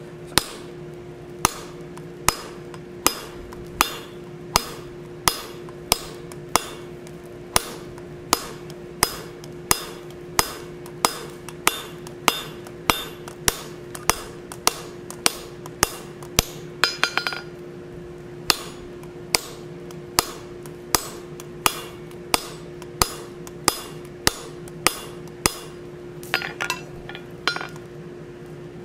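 Soft-face hammer striking a hardened round-nosed bob punch held on the hot steel of a forged oak leaf, fullering the leaf's lobes. The blows are steady, about one every three-quarters of a second, with a brief flurry of quicker light taps about two-thirds of the way through and again near the end.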